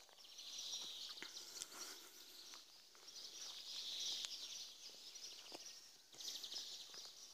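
Faint birds chirping and chattering in several short spells, with a few soft footsteps on bark and pine-needle mulch.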